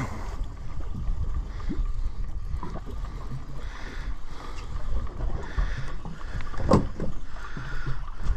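Wind on the microphone and water slapping against the hull of a boat, with one sharp knock about seven seconds in.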